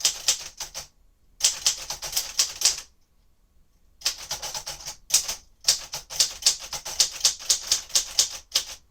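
1957 Royal Aristocrat manual typewriter being typed on: quick runs of key strikes, several a second, broken by two pauses of about a second.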